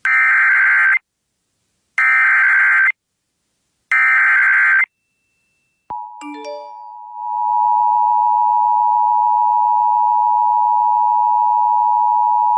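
Emergency Alert System SAME header: three one-second bursts of screeching data tones, a second apart. A few short beeps follow, then a steady, loud alert tone that holds to the end, announcing a severe weather warning.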